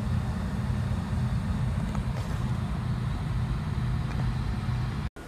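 Engine running steadily with a low hum, heard from inside a Jeep's cabin. It cuts out abruptly just before the end.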